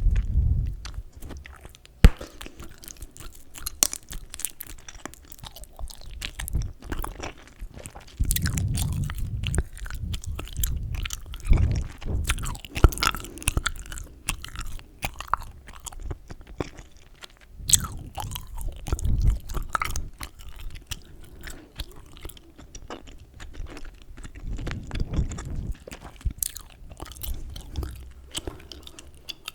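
Close-miked chewing gum: irregular wet smacks, clicks and squelches of the mouth working the gum, in uneven bursts.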